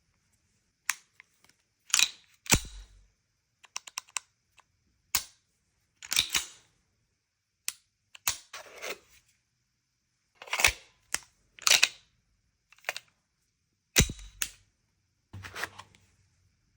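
Irregular sharp clicks and clacks, about a dozen, some followed by short sliding sounds: a Fusion XP Pro 1911 pistol and its gear being handled.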